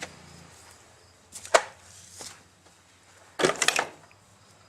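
A few sharp knocks and clacks of hard objects being handled: a click, a loud single knock about a second and a half in, and a short rattling cluster of knocks past three seconds in.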